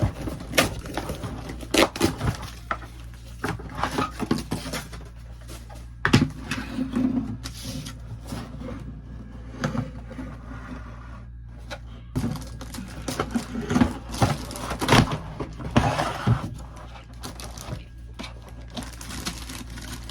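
Packaging and plastic toy pieces being handled as a play set is unboxed: irregular scrapes, rustles and sharp knocks.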